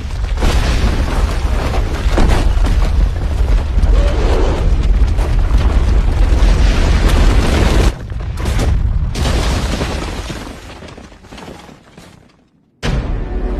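Loud, continuous crashing and booming with a heavy low rumble. It drops back about eight seconds in, swells once more, then fades away over the last few seconds.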